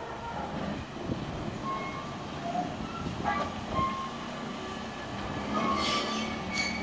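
Enshu Railway ED28, a 1925-built electric locomotive, rolling slowly along the station track with a low wheel-and-rail rumble. A few sharp metallic clanks come near the end.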